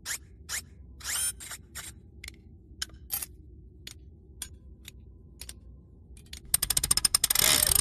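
Scattered metallic clicks and short rising squeaks as a small engine on a rail trolley is worked on. About six and a half seconds in, the engine fires with a fast run of pops that quickly merges into loud, steady running.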